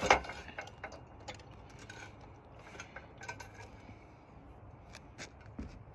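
Metal clinks and clicks of tools and parts being handled while stripping down a mini bike, opening with one sharp clank and followed by scattered lighter taps.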